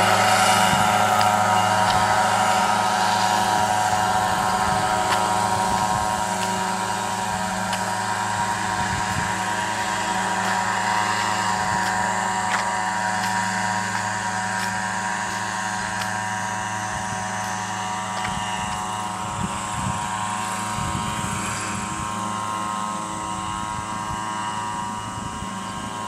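Engine and rotor of a small remote-control crop-spraying helicopter, a steady drone with many even tones. It grows gradually fainter as it moves off over the rice fields.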